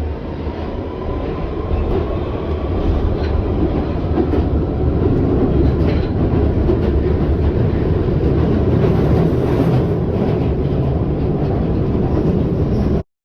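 London Underground train running: loud, steady running noise of the train in motion, which cuts off suddenly near the end.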